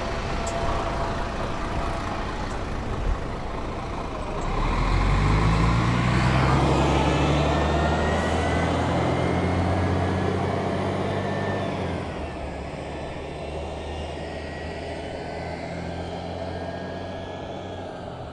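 Mercedes-Benz O530 G articulated city bus's diesel engine idling, then about four seconds in revving up with rising whines as the bus pulls away. The engine eases off and runs lower from about twelve seconds in.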